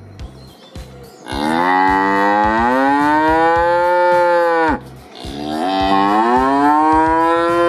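A cow mooing: two long calls, each rising in pitch and then held, the first starting about a second in and lasting over three seconds, the second following after a short pause.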